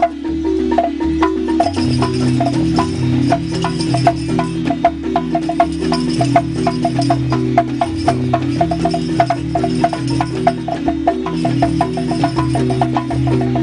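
Balafon, a wooden-keyed xylophone, played fast with two mallets: a quick, even run of bright wooden strikes making a dance rhythm, with a steady lower melody underneath.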